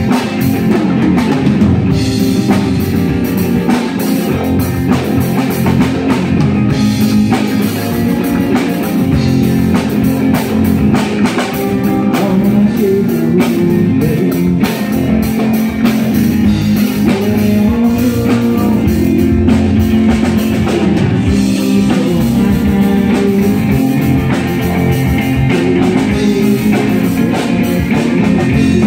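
A live rock band playing: electric guitar, bass guitar and drum kit, loud and continuous.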